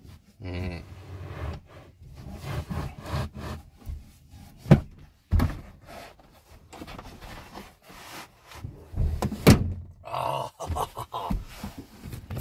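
A carpeted wooden subwoofer box knocking and thudding against the seats and console as it is shoved and shuffled into place in a ute's cab. There are two louder thumps, one near the middle and one about three-quarters through.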